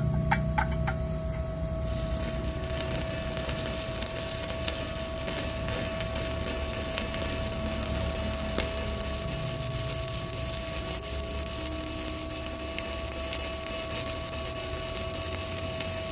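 Stick-welding arc from a WeWeld ARC 220 inverter welder set to 155 A, burning a 4 mm E6013 rod. A few sharp clicks come first, then a steady crackling sizzle from about two seconds in, as the rod holds a continuous arc. A faint steady whine sits underneath.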